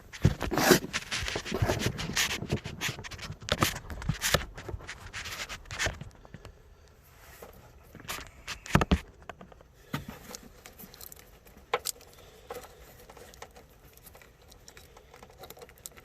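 Wire cutters snipping through tail-light harness wires one at a time, with plastic clicks and rustling as the wiring is handled. The clicks come thick and fast for the first six seconds, then thin out to a few single snips.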